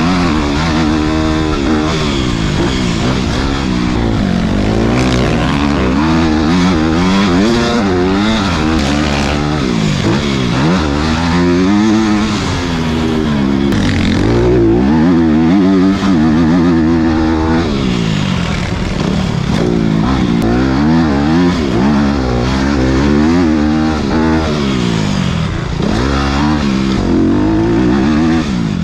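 Motocross bike engine heard close up from the rider's position, revving up and dropping again and again as it accelerates and rolls off, its pitch climbing and falling every second or few.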